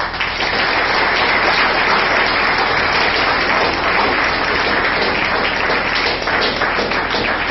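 Audience applause, starting suddenly and dense throughout, beginning to die down near the end.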